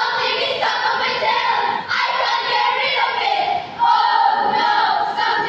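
A choral speaking team of schoolchildren voicing lines together in unison, many voices at once, with brief breaks about two seconds in and again just before four seconds.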